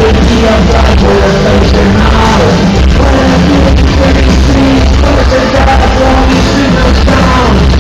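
Industrial band playing live through a concert PA: loud, dense music with heavy bass and vocals, recorded on a phone in a hall, with the top end cut off.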